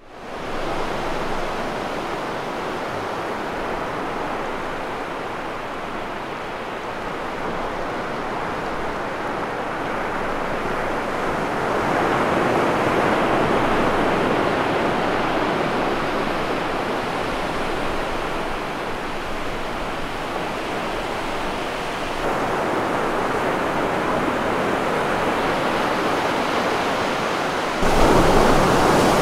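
Ocean surf breaking and washing up a flat sandy beach: a steady rushing hiss that swells and eases, jumping suddenly louder near the end.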